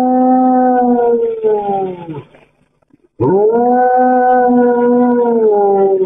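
A dog howling: two long howls of about three seconds each, separated by a pause of about a second, each holding a steady pitch and sagging slightly as it ends.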